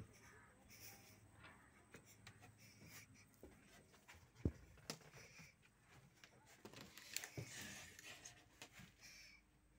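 Near silence with faint scattered clicks and rubbing, and one louder thump about four and a half seconds in: footsteps and handling of the phone as someone moves about a wooden boat.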